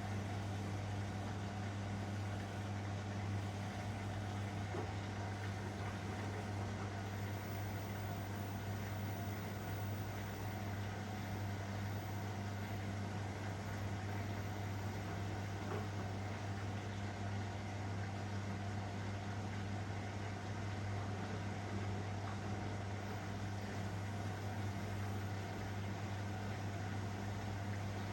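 Elin front-loading washing machine running with a steady, even hum that does not change.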